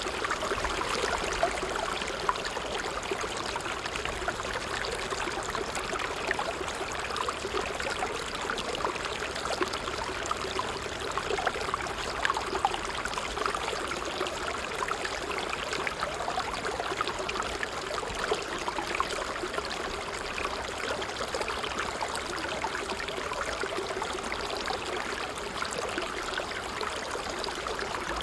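Water trickling steadily over stones in a small stream, a continuous babble with many small irregular splashes and drips.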